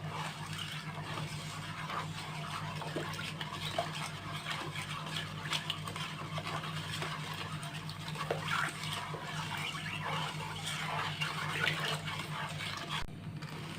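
A thick mixture of raw tamarind, sugar and water being stirred round and round in a pot: soft wet sloshing with scattered small clicks. A steady low hum runs underneath.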